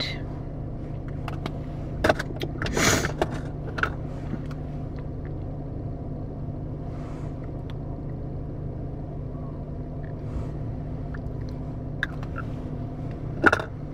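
Steady low hum of a car idling, heard from inside the cabin, with a few brief clicks and rustles about two to four seconds in and another just before the end.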